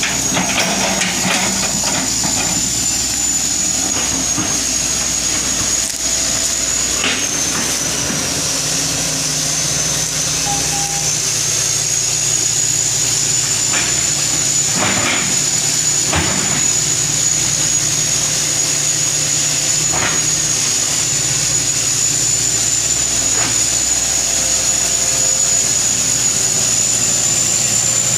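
A 1983 Hitachi excavator's diesel engine runs steadily under a continuous high whine. Several short knocks or clanks sound through it.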